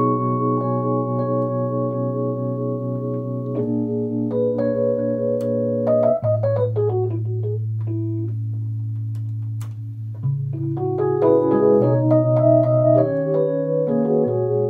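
Rhodes electric piano being played: held chords over a low bass note, a quick falling run about six seconds in, then a quieter held chord before the chords pick up again.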